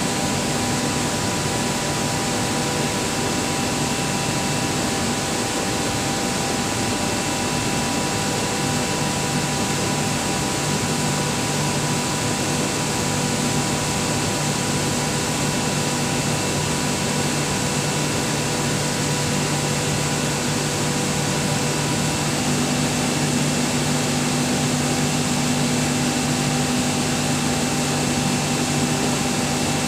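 Screw air compressor running with a steady drone and hum carrying several steady tones. About two-thirds of the way in, some of the higher tones drop out and the low hum grows stronger.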